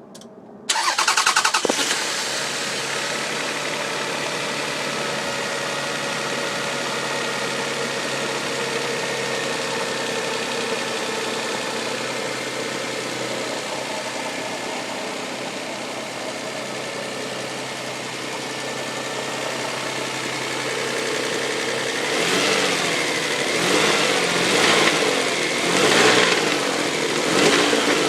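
A 1999 Toyota Sienna's 1MZ-FE V6 starting about a second in, idling steadily, then revved in several short blips near the end. The revs bring out a knocking or tapping that the owner likens to something hitting the valve cover.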